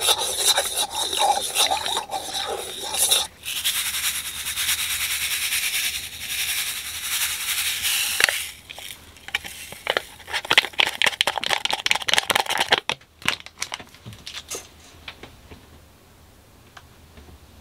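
A metal spoon scraping and stirring in a stainless steel bowl of water. Then dry yeast granules pour from a paper packet into the bowl as a steady hiss for about five seconds. Scattered ticks and taps follow as the packet is shaken out, fading out a few seconds before the end.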